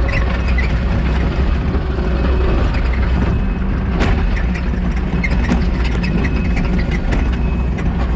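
Kubota SVL90-2 compact track loader's diesel engine running steadily under load as the machine tracks over and packs down backfill on a slope. A few short clanks come from the tracks and loader, the sharpest about four seconds in.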